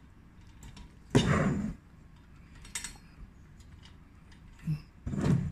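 Metal parts of a Coleman 533 Dual Fuel camping stove's burner assembly being handled and fitted by hand: a short scrape about a second in, then a few light clinks, and another brief rustle near the end.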